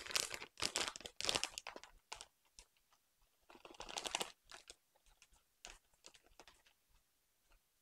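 Plastic bag of shredded cheese crinkling in the hands in short bursts as cheese is shaken and pinched out of it. The crinkling is thickest in the first two seconds, comes again about four seconds in, then thins to a few faint ticks.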